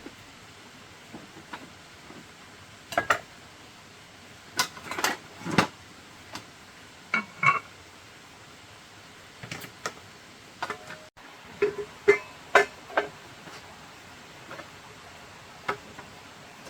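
Irregular knocks and clinks of household objects being handled and set down, a few with a short ringing tone, about a dozen scattered hits.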